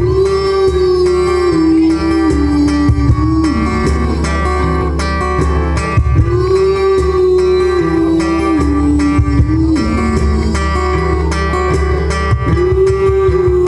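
Live acoustic band music: a strummed acoustic guitar, a small plucked string instrument and a cajon beat. Over them runs a slow melody of long held notes that step down in pitch, phrase by phrase.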